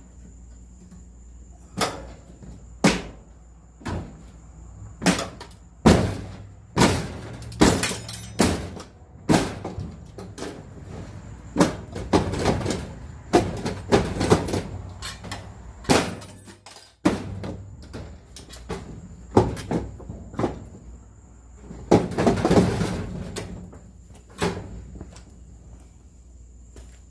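Irregular metal clanks, knocks and scraping as tools work on a dryer's sheet-metal cabinet and motor mount to get the electric motor out. There are a couple of dozen sharp hits and a few longer grinding, scraping stretches.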